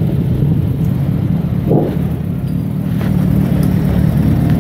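Many motorcycle engines running together in a steady, loud, low rumble.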